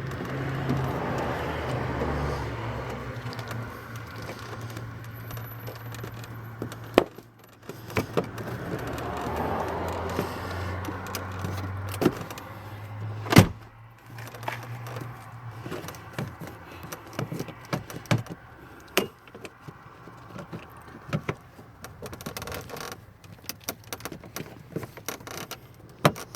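Plastic interior trim of a car's glove-box area being handled and pushed back into place: scattered clicks, knocks and rattles, with low handling rumble in the first half and one sharp click about halfway through.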